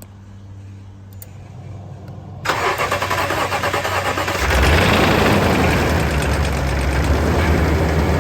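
A low steady hum, then about two and a half seconds in the starter cranks the freshly replaced Toyota Tundra engine. It catches about two seconds later and runs steadily: the first start of the new engine.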